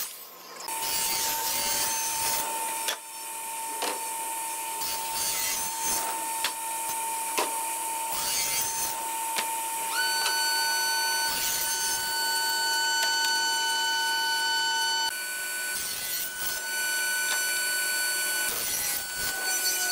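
Electric saws running: a circular saw cutting a hardwood board, then a table saw running as boards are slid across its table, with scraping and a few knocks. A steady motor whine runs under the cutting noise, and a second, higher whine joins about halfway through.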